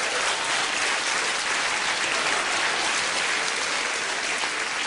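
Live audience applauding steadily, a dense even sound of many hands clapping.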